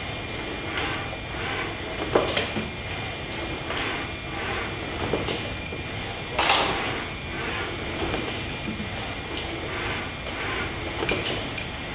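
Four-metre humanoid robot walking sideways: a steady mechanical hum with a faint high whine, broken by knocks and clatters about once a second as its heavy feet lift and set down. The loudest knock comes about halfway through.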